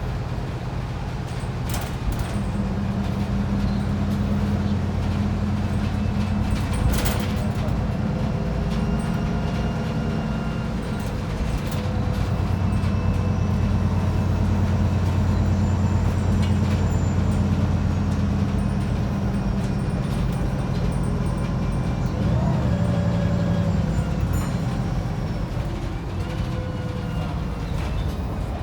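Wright Pulsar 2 single-deck bus engine heard from on board, pulling under load, its pitch stepping up and down a few times as the bus changes gear and speed. A brief sharp noise stands out about seven seconds in.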